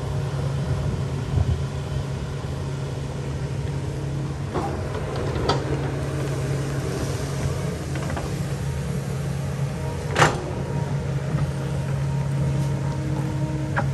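Kobelco hydraulic excavator's diesel engine running steadily under work, with several sharp knocks from the machine working, the loudest about ten seconds in.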